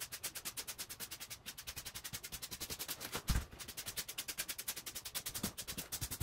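Fast, even scratching of a paintbrush's bristles scrubbing back and forth over a carved styrofoam surface, about ten strokes a second, during dry-brushing. A dull thump about three seconds in.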